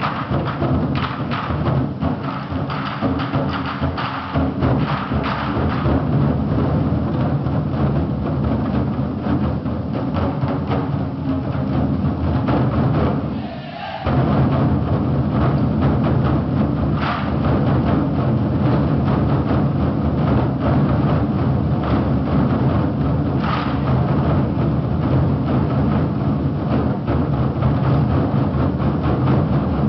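Twenty-Four Festive Drums ensemble: many large Chinese drums struck together in fast, dense rhythms. The drumming drops back briefly about halfway through, then the full ensemble comes back in at once.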